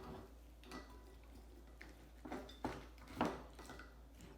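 A few light knocks and clinks against a glass mason jar as kimchi is put in and packed down.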